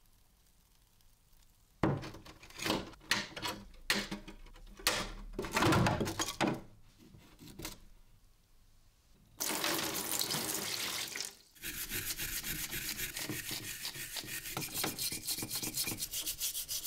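Water splashing in irregular bursts as the rusty hammer head is handled wet after electrolysis. Then about two seconds of running water, and from about twelve seconds in, a stiff brush scrubbing the wet steel head in quick, even strokes.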